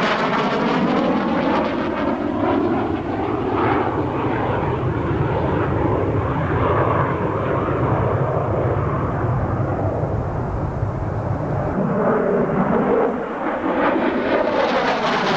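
Saab JA 37 Viggen fighter's Volvo RM8B turbofan engine noise during a display flight. A close pass with a sweeping whoosh fades to a deep low rumble as the jet moves away. Near the end the sound builds and brightens again as the jet comes back close.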